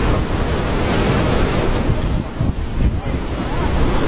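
Wind buffeting the microphone over the steady rush of sea waves, loud and continuous with a brief dip about two and a half seconds in.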